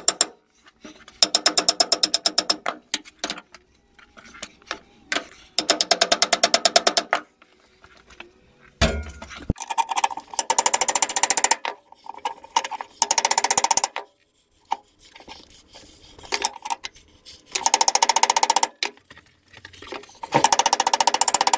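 Rubber mallet striking the old wood lathe's headstock spindle and pulley in several bursts of very rapid blows, to drive out the seized spindle.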